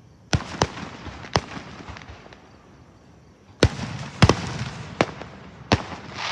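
Aerial firework shells bursting: a string of sharp bangs, three in the first second and a half, then four more from about three and a half seconds in, each trailing off in a short echo.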